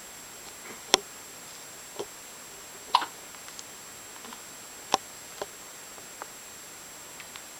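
Hiccups, roughly one a second, six in all; three of them are sharp and loud and the others fainter.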